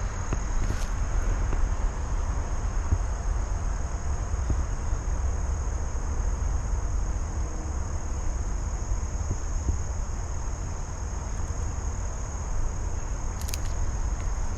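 Crickets trilling steadily in one high, unbroken tone, over a low rumble and a couple of faint clicks near the end.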